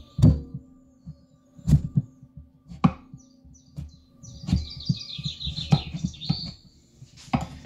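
Chef's knife being forced through a hard raw acorn squash, with repeated thuds of the blade and squash against a wooden cutting board. High chirping is heard in the background around the middle.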